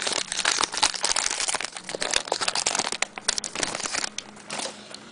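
Foil trading-card pack being torn open and crinkled by hand: dense, irregular crackling that thins out about four seconds in.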